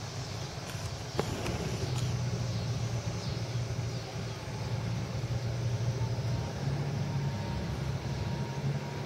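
Steady low rumble of a diesel vehicle's engine with road noise, and a single sharp click about a second in.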